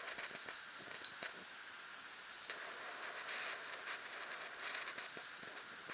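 Faint, steady hiss of a handheld gas torch flame, with a few light clicks of handling.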